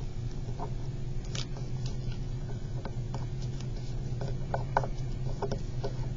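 Origami paper rustling and crinkling as flaps are folded into the middle and creased flat under the fingers: a scatter of small crisp clicks, thickest about four to five seconds in, over a steady low hum.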